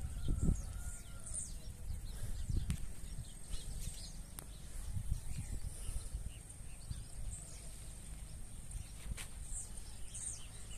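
Rural outdoor ambience: an uneven low rumble on the microphone, with scattered faint bird chirps and a steady high insect drone.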